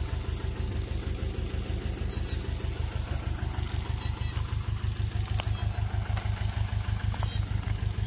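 Airman PDR 90S portable air compressor's three-cylinder diesel engine running steadily with an even low throb.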